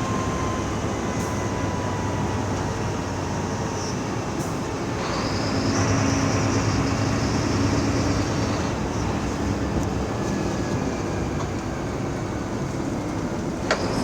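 Mercedes-Benz OF 1724L bus engine running as the bus drives, under a steady bed of rolling and body noise. The engine note strengthens and a high hiss comes in about five seconds in, easing off around nine seconds; a single sharp click sounds near the end.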